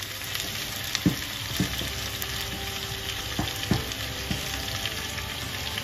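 Sliced onions sizzling in hot oil in a stainless steel Saladmaster pan as more are tipped in from a steel lid, with a steady hiss and about five short knocks from the lid and onion pieces landing against the pan.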